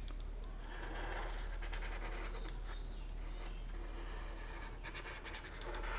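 Blue felt-tip marker drawn across paper as a circle is traced: faint scratching strokes over a steady low hum.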